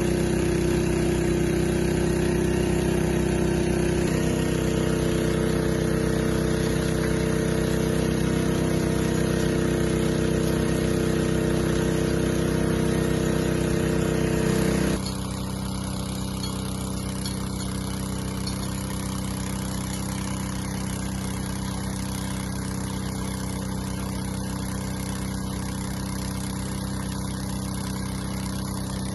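An engine running steadily; about four seconds in its note steps up slightly, and about fifteen seconds in it drops to a lower, quieter note and runs on evenly.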